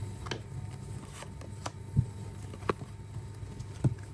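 Tarot cards being handled, giving about six short, light clicks and taps at irregular intervals over a steady low hum.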